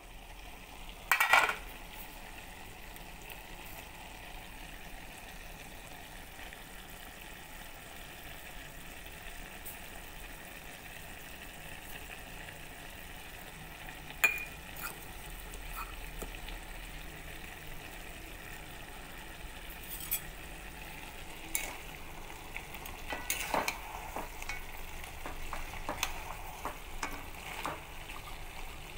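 Chicken, onions and spice paste sizzling as they fry in a metal pot, a steady hiss throughout. A sharp metallic clatter comes about a second in as the pot's lid is handled, and in the last third a spatula stirs and scrapes against the pot with light knocks.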